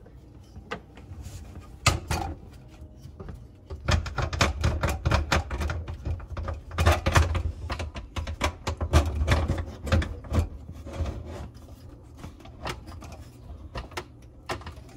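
An American Standard garbage disposal being pushed up and twisted onto its sink mounting collar by hand. Its metal tabs click, knock and scrape as they ride up the ramps on the mounting ring. There is a sharp knock about two seconds in, then a dense run of clicks and knocks with low thuds for about six seconds, thinning out near the end.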